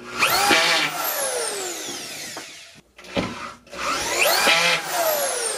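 DeWalt DW272 corded drywall screw gun driving screws through ceiling drywall into metal hat channel. Its motor whine rises quickly and then falls away slowly, twice, about four seconds apart.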